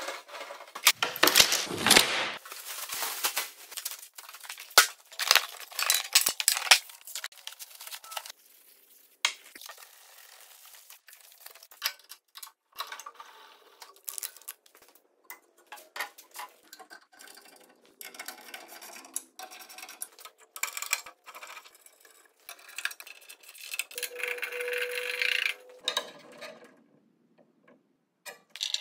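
A rapid series of knocks, clinks and scrapes of metal bandsaw parts and hand tools as a King Industrial bandsaw is uncrated and put together, loudest and busiest in the first several seconds. About 24 seconds in, a steady humming mechanical sound runs for around two seconds.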